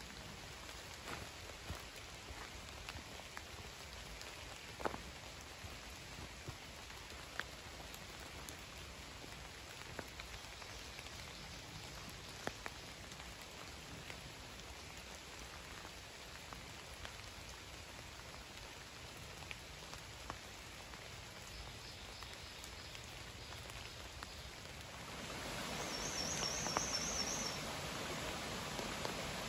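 Rain falling: a steady hiss with scattered single raindrops ticking sharply. About 25 seconds in, a louder rush of flowing water swells up, and a quick run of high chirps sounds near the end.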